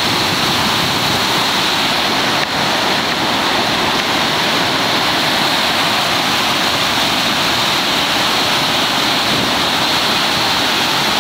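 Whitewater rapids churning over rock: a loud, steady rush of water.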